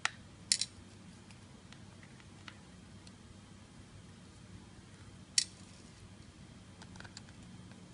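Small sharp clicks and faint ticks of a tiny screwdriver and screws being handled while the front-cover screws of an SJ4000 action camera are taken out. The loudest clicks come right at the start, as a double about half a second in, and once about five and a half seconds in.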